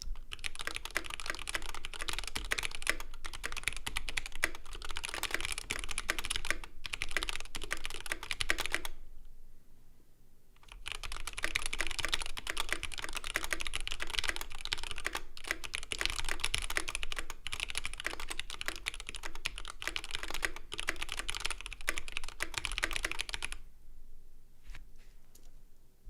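Typing on a 65% gasket-mount keyboard with an anodized aluminum case and aluminum plate, GMK keycaps and stock, unlubed Durock L2 linear switches: fast continuous keystrokes for about nine seconds, a short pause, another run of about thirteen seconds, then a few single key presses near the end.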